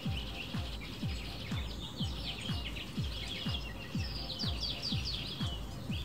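Many small birds chirping and twittering in quick, overlapping phrases, over background music with a steady low beat about twice a second.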